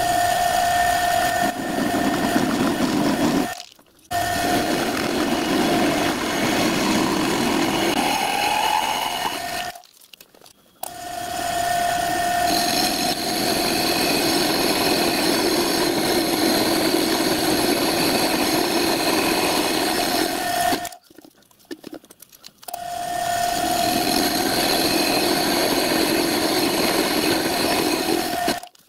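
Milling machine drilling and boring out a chimney hole in a metal locomotive smoke box: the spindle runs with a steady whine over cutting noise. The sound drops out briefly three times, about four, ten and twenty-one seconds in.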